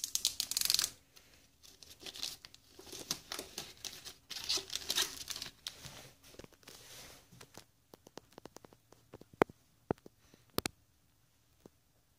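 Protective plastic film being peeled off a clear polycarbonate sheet: a crackling, tearing sound in uneven bursts for about the first seven seconds. Then come a few separate sharp clicks, the loudest of them about nine seconds in.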